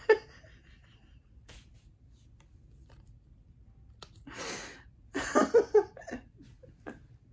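A woman laughing softly: a short sharp vocal sound at the start, a breathy exhale about four seconds in, then a string of short laughs just after five seconds.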